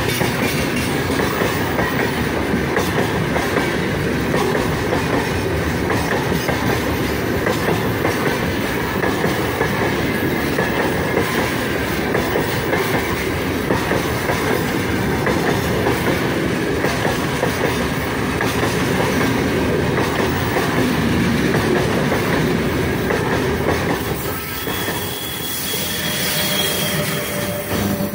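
Freight train's open gondola wagons rolling past close by, their wheels rumbling and clacking steadily over the rails. Near the end the noise dips briefly and a thin high whine sounds for a few seconds.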